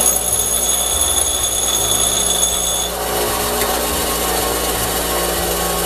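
Bench grinder running, with a piece of low-grade steel bolt pressed against the wheel for a spark test: a high grinding whine for about the first three seconds, then the bolt is lifted off and the grinder keeps running.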